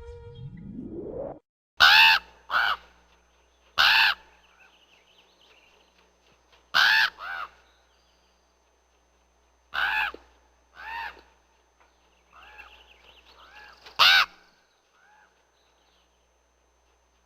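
A raven calling: a run of short, harsh croaking caws, about eight loud ones, some in quick pairs, with a few fainter calls in between. A low rising sweep opens it before the first call.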